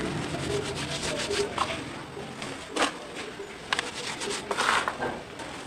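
Dry, powdery red dirt sifting and crumbling through fingers into a plastic tub: soft, gritty rustles, with a few louder pours about midway and near the end.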